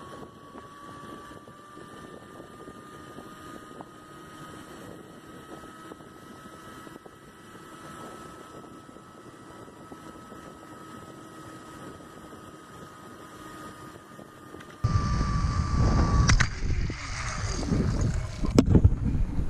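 Zip-line trolley pulleys running along the steel cable: a faint, steady, high whine that slowly rises in pitch and then holds. About three-quarters of the way through it gives way to loud rumbling and rustling on a rider's camera microphone, with two sharp clicks of harness hardware.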